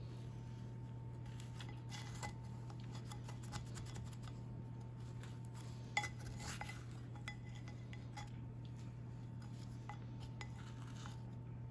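Slotted plastic spatula scraping and tapping against a ceramic pie dish while lifting out baked biscuit pinwheels, with scattered light clinks, the sharpest about six seconds in, over a steady low hum.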